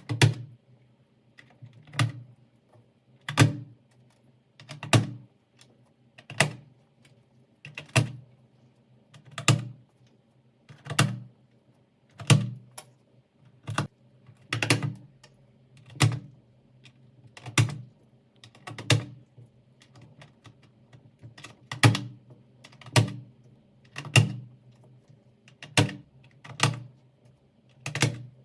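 Computer keyboard keys clacking one at a time, a sharp click with a low thud roughly every second and a half, with a short pause about two-thirds of the way through.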